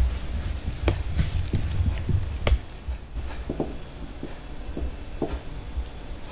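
Hands scooping raw minced meat from a ceramic bowl and rolling it into meatballs: dull low thuds, heaviest in the first couple of seconds, with scattered short taps and clicks.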